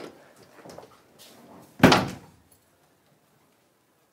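A door slams shut once, hard, about two seconds in, after a few faint handling sounds.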